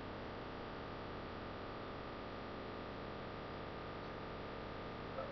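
Steady background hiss with a faint electrical hum from the recording, and a single small click near the end.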